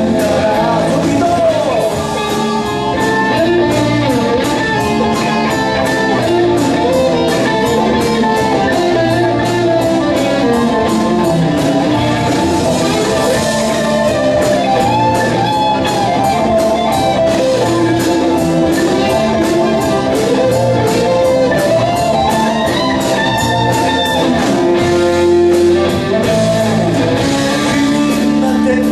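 Live rock band playing an instrumental passage: an electric guitar line with bending notes over bass and drums, the cymbal ticking on a steady beat.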